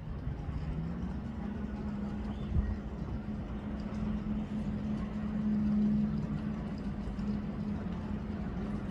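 Distant jet ski engines running with a steady droning hum, a second engine tone rising slightly early on and the drone swelling about six seconds in. A single short knock about two and a half seconds in.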